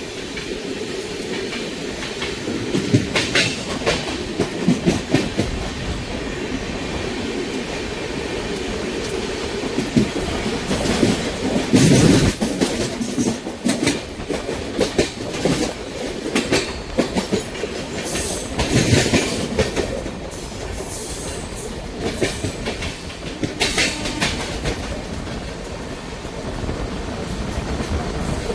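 Passenger train's LHB coach wheels running on the rails through a curve: a steady rumble with clickety-clack over rail joints and wheel screech. Loud surges come a few times and are strongest about twelve seconds in.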